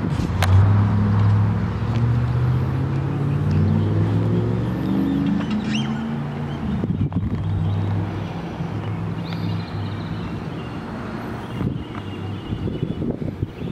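Motor vehicle engine running, its pitch stepping up and down over the first several seconds and then holding steadier. A sharp click about half a second in.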